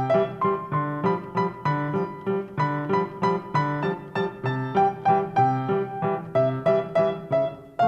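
Piano playing a lively piece: a melody over repeated low chords, notes struck about three times a second.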